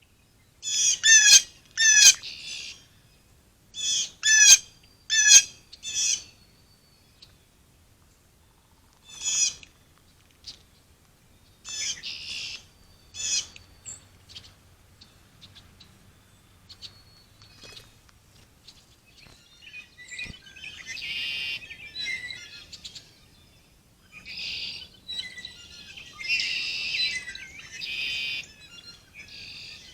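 Wild birds calling: a quick series of short, sharp, high-pitched call notes in the first six seconds and a few more up to about halfway, then longer chattering song phrases in the second half.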